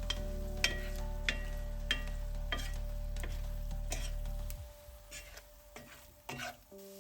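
Food being stirred in a frying pan: a utensil knocks against the pan with a short metallic ring roughly every half second, over a faint sizzle. A steady low hum underneath stops about two-thirds of the way through, leaving a few softer knocks.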